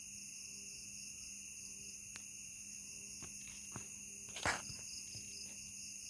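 Night insect chorus: a steady high-pitched shrilling. A few faint clicks, then one sharp knock about four and a half seconds in.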